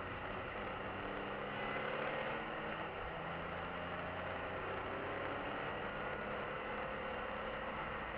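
BMW E46 M3's straight-six engine running under load with tyre and road noise, heard inside the cabin. The engine note climbs slowly, steps down once about three seconds in, then climbs again.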